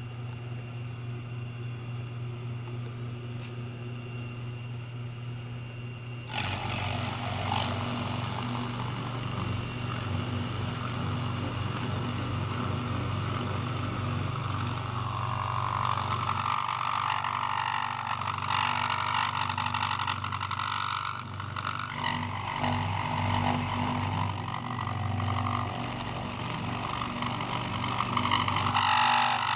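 Vertical milling machine spindle running, then about six seconds in the end mill starts cutting into the aluminium housing of a dry vacuum pump, a steady, harsh cutting noise over the motor hum.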